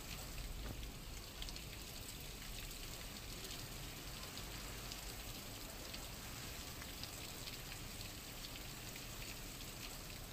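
Steady hiss of falling water with fine pattering drops throughout: monsoon rainwater streaming and splashing over stone.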